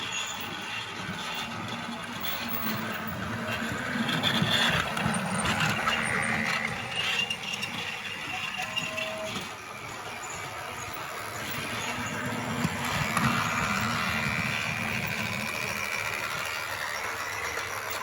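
Battery-powered Lego Duplo toy train running on its plastic track, a steady whir that swells louder twice.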